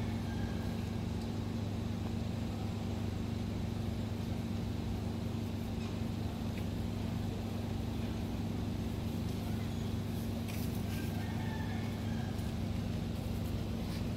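A steady low motor hum that holds one pitch without change.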